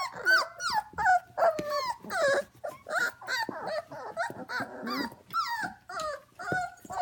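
A litter of young F1 Goldendoodle puppies whining and yipping together: many short, high cries that rise and fall, overlapping one another without a break.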